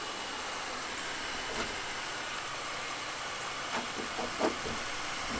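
Heat gun blowing with a steady hiss, softening old seam tape on a composite boat hull. A few brief scrapes and clicks come about a second and a half in and again near the end as the tape is worked off.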